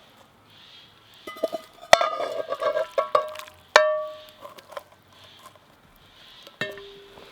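Metal utensils and cookware clinking: a cluster of sharp, ringing clinks about a second and a half in, with a last few near the end.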